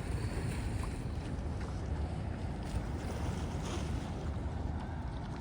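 Wind buffeting the microphone outdoors, a steady, irregular low rumble with no distinct events.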